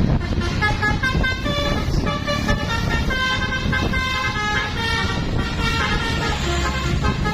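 Basuri multi-tone 'telolet' horn playing a quick tune of short notes that begins about half a second in and keeps changing pitch every few tenths of a second.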